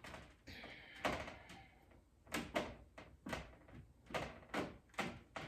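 A series of light knocks and taps, spaced irregularly, from handling a baking sheet of peanut butter cookie dough.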